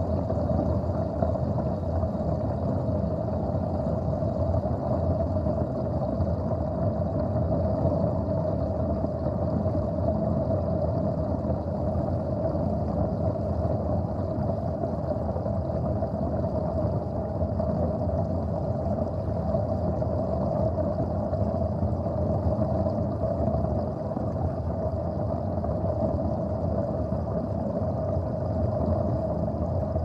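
Steady underwater rumble of water in a sink plughole: a low churning noise with a constant hum-like tone over it, unbroken throughout.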